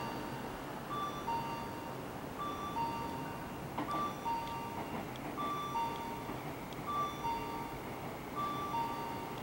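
Railway platform train-approach chime: a two-note ding-dong, high then low, repeating about every second and a half, signalling that a train is arriving at the platform.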